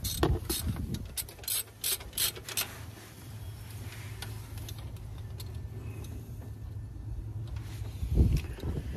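A socket ratchet clicks in short runs over the first few seconds while the idler pulley bolt is worked loose, then a steady low hum follows. A dull thump comes near the end.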